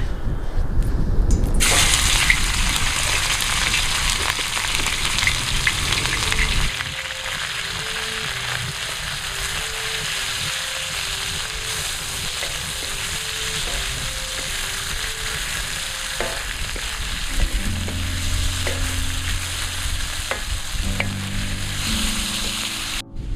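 Meat and vegetables sizzling as they fry in a saj pan, with scattered scrapes and clicks of stirring; the sizzle sets in suddenly about a second and a half in. Soft background music with a slow melody comes in about a third of the way through, and a lower line joins near the end.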